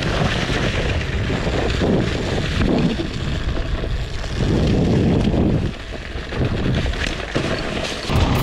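Dirt bike engine running while riding, mixed with heavy wind buffeting on the camera's microphone. The level swells and drops, with a short dip about six seconds in.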